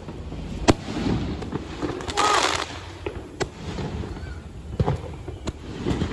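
Fireworks going off overhead: several sharp bangs of aerial bursts, the loudest under a second in, with a short hissing rush about two seconds in.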